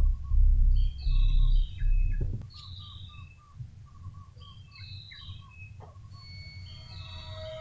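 Birds calling in a repeating phrase, a high falling chirp followed by a quick run of lower notes, heard three times. A low rumble lies under it for the first two seconds or so, and a steady electronic music tone comes in about six seconds in.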